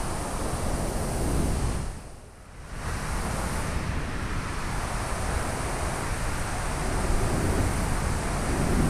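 Steady roar of city street traffic, dipping sharply for under a second about two seconds in.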